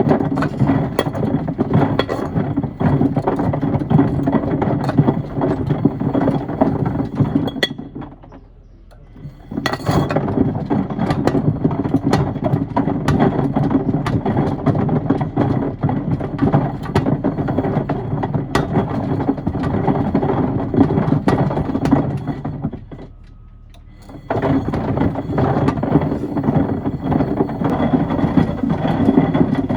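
Miele front-loading washing machine tumbling pieces of wood and stones in its drum: a loud, continuous clattering and knocking. It drops away twice for a second or two, about a third of the way in and again near the three-quarter mark, as the drum stops and reverses direction.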